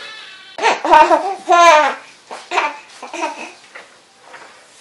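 Baby crying: two long, loud wails about half a second and a second and a half in, then shorter sobs that fade toward the end.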